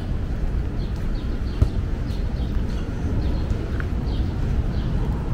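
Small birds chirping in short, falling notes, over and over, over a steady low background rumble, with a single sharp click about a second and a half in.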